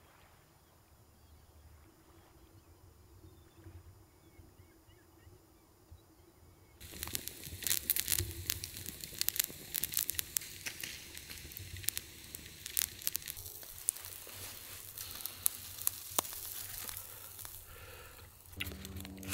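Food sizzling in a hot pan, a dense steady crackle that starts suddenly about seven seconds in after a quiet stretch.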